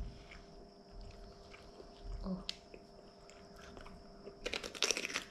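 A crisp bite into a chunk of raw cucumber, a quick cluster of crunching cracks about four and a half seconds in.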